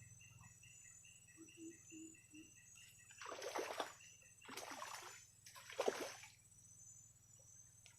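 A hooked hampala barb splashing three times at the water's surface, each splash about half a second long and a second apart.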